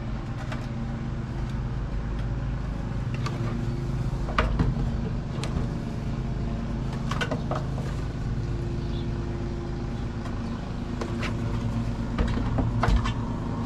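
A steady engine hum in the background, with scattered short knocks and taps as a plastic display unit is set into and lifted out of an aluminium dash cut-out.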